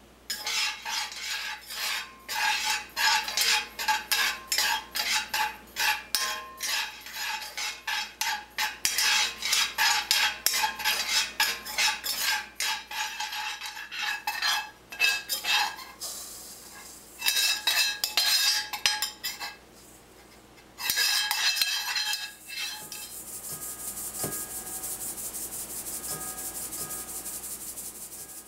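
A metal spoon stirring and scraping dry-roasting ground acorns around a cast-iron pan, in quick repeated strokes with a ringing metal tone. Near the end this gives way to a steady high hiss of the roasted grounds being shaken through a fine mesh strainer into a stainless steel bowl.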